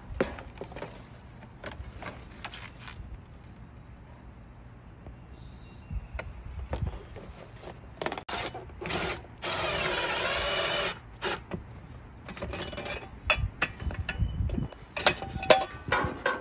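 Clicking and rattling of tools and hardware during installation work, with a steady mechanical noise lasting nearly two seconds a little past the middle and a busier run of clicks toward the end.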